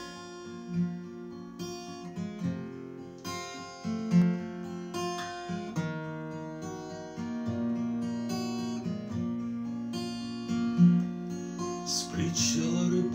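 Acoustic guitar playing an instrumental intro, notes picked one after another, turning into fuller strums near the end.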